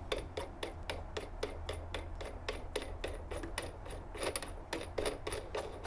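Ryobi RDP102L drill press mechanism being wound all the way down, giving a steady run of short clicks with a rasping rub, about four a second.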